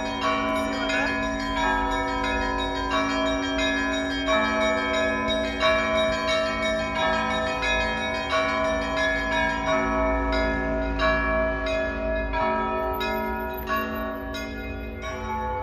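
A church bell tower ringing a peal (perezvon): several bells struck in quick succession, their tones ringing on and overlapping.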